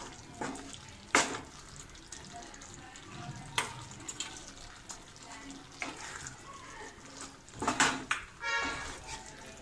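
A spatula stirring koftas through thick, wet gravy in a nonstick saucepan, scraping the pan, with a few sharp knocks of the spatula against the pan.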